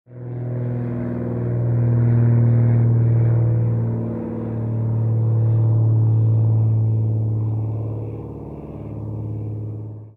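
Light piston-engine propeller aircraft running, a steady low buzzing drone from the propeller with a strong hum and a stack of overtones. The drone swells about two seconds in, dips briefly around four seconds, swells again, then eases near the end.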